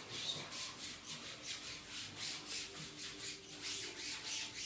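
Hand rubbing back and forth over a carpet stencil, working loose talcum powder through the cut-out lettering onto velvet cloth, in quick repeated strokes about four a second.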